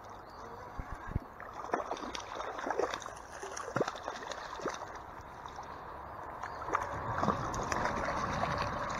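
Hooked trout splashing and thrashing at the surface of a shallow stream as it is reeled in, irregular sharp splashes over the steady rush of flowing water, which grows louder in the second half.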